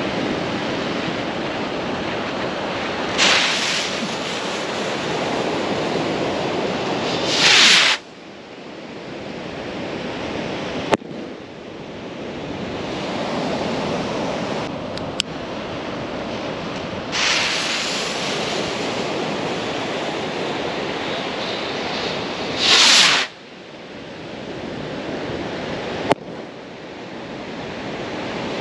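Two sky rockets launch over steady surf. Each time a short hiss is followed a few seconds later by a loud rushing whoosh as the rocket lifts off, which cuts off suddenly. About three seconds after each liftoff comes a single sharp pop as the rocket bursts in the sky.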